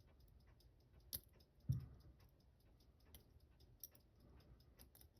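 Faint small clicks and taps of metal tools on a small watch case and its parts, with a sharper click about a second in and a soft knock just after.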